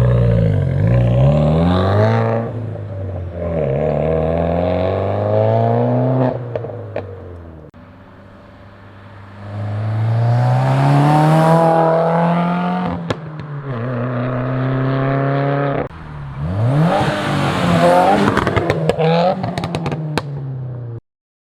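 Subaru WRX turbocharged flat-four with an aftermarket exhaust, revved up and let fall about four times, with crackles and pops as the revs drop. It cuts off suddenly near the end.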